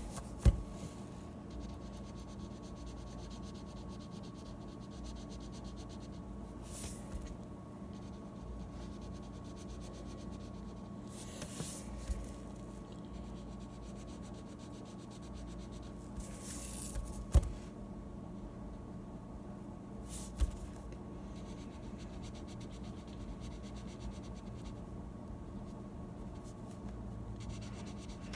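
Felt-tip markers scratching on paper in short strokes while coloring, with a few sharp knocks from a marker being set down or tapped on the table, over a steady background hum.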